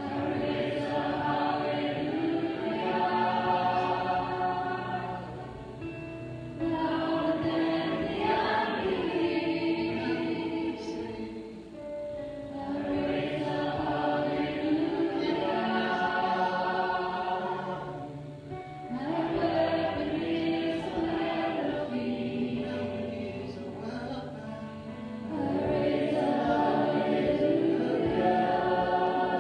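Live church worship band: several voices singing a slow worship song together in long phrases with short breaks about every six seconds, accompanied by acoustic guitar and electric bass.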